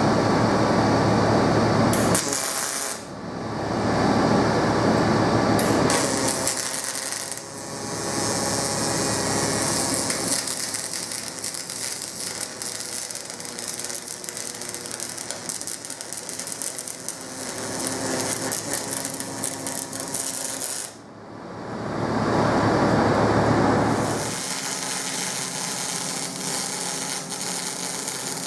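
MIG welding arc crackling and buzzing in a run of separate welds, each starting and stopping, some with a steady high hiss.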